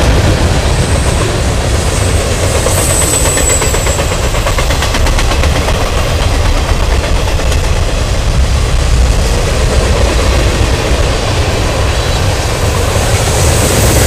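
Freight cars of a long mixed freight train rolling past: a loud, steady rumble of steel wheels on rail with rapid clicking. A faint high squeal comes in briefly about three seconds in.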